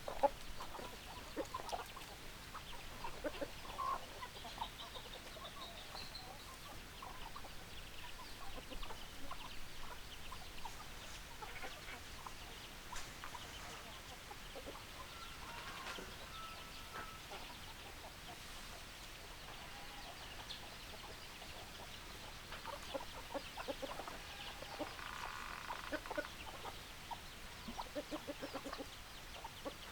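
Chickens clucking: many short, irregular calls from several hens overlapping.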